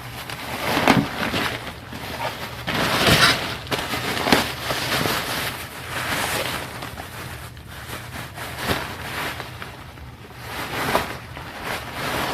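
Packaging being unwrapped and handled, making uneven bursts of rustling and crackling noise.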